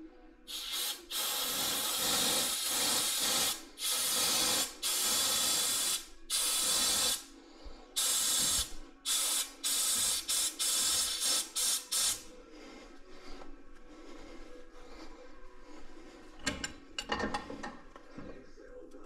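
Pneumatic air tool run in repeated bursts of compressed-air hiss, about eight bursts of a second or two each for the first twelve seconds, followed by a few sharp metal knocks.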